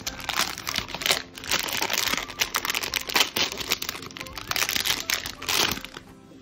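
Foil blind-box bag crinkling and crackling as it is handled and torn open by hand, in dense irregular crackles that stop abruptly just before six seconds in.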